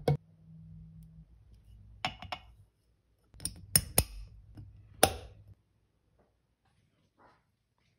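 Glass on glass: a glass Weck jar lid is set onto the rim of a glass jar and pressed down. It gives a few sharp clinks about two seconds in, a quick run of clinks around three and a half to four seconds, and one last ringing clink about five seconds in.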